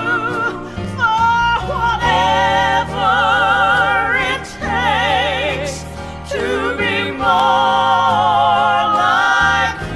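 Southern gospel vocal group of men and women singing long held notes in harmony, with heavy vibrato, over a band accompaniment with a steady bass line.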